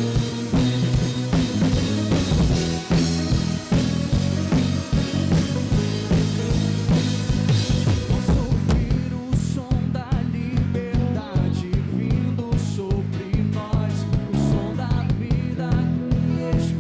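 Live worship band playing an instrumental passage of a gospel song: drum kit, bass and guitar with a steady beat. About halfway through the cymbal wash drops out and the drumming thins to sparser hits.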